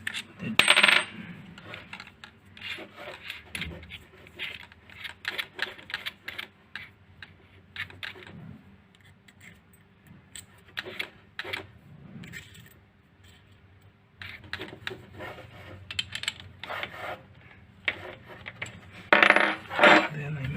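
Small metal drill and screwdriver bits clinking and rattling as they are handled and swapped in the drill, with scattered sharp clicks and a louder clatter near the end.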